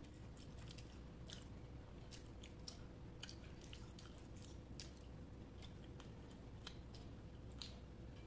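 Close-miked chewing of rice and curry: soft wet smacking and small clicks of the mouth, irregular, several a second.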